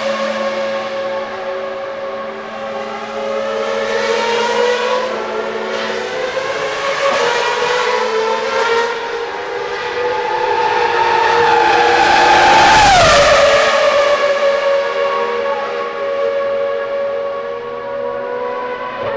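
Ferrari Formula 1 car's V8 engine running at a steady high idle, with a few light throttle blips; the biggest, about twelve seconds in, rises in pitch and falls back to idle.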